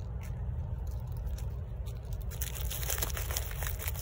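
Crinkling and crunching handling noise, sparse at first and dense from about two seconds in, over a steady low rumble.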